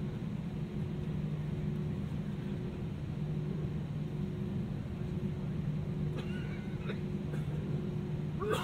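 Steady low drone inside an Airbus A320-200 cabin, from the V2500 jet engines and the air-conditioning, with a constant low hum. A brief faint voice-like sound comes about six seconds in, and another right at the end.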